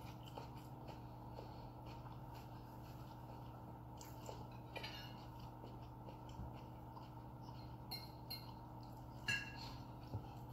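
Quiet eating sounds at a table: a fork tapping and scraping on ceramic plates, with a couple of brief ringing clinks about four and a half and nine seconds in, over a steady low hum.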